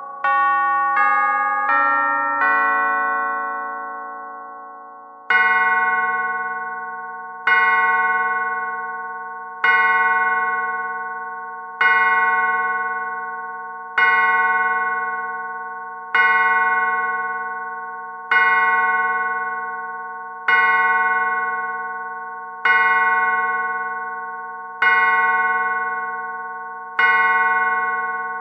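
Antique pendulum clock chiming. The last notes of its chime tune sound in quick succession, then from about five seconds in the same deep bell strike repeats about every two seconds, ringing out and fading between strikes, as the clock strikes the hour.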